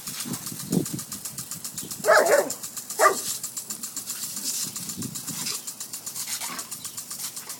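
A dog barks twice, about two seconds in and again a second later, over the hiss of a lawn sprinkler spraying with a fast, even ticking rhythm.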